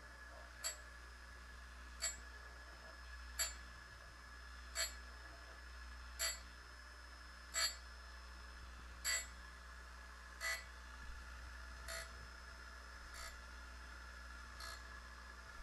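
Short, light ticks with a slight metallic ring, evenly spaced about every second and a half, growing fainter after the middle, over a faint steady hum.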